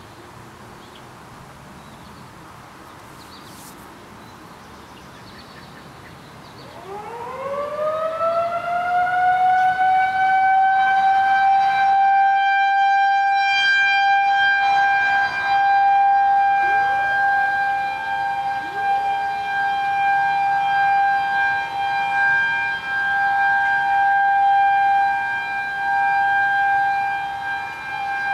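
A Federal Signal 2001-130 outdoor warning siren winds up about six seconds in, its pitch rising quickly and then holding one steady tone, the Alert signal of a monthly siren test, its loudness swelling and fading as the siren rotates. About ten and twelve seconds later two more distant sirens wind up and settle on a slightly higher steady tone.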